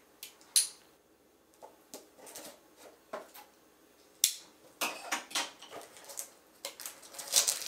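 Scattered clicks, taps and light crinkles of plastic from a small red pocket knife being opened and a shrink-wrapped cardboard box being handled and slit on a stone countertop. The sharpest click comes a little past the middle.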